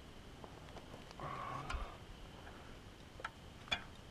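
Faint, brief splashing of a small bass at the surface as it is reeled up to a kayak, then two sharp clicks in the second half as the fish is swung aboard.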